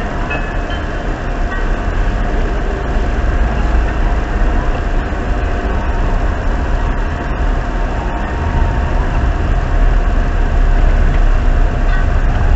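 A vehicle driving along a road: a steady low rumble of engine and road noise, with a faint steady tone running through it.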